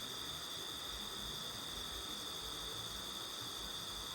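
Steady chorus of night insects, a continuous high-pitched trill in several pitches at once.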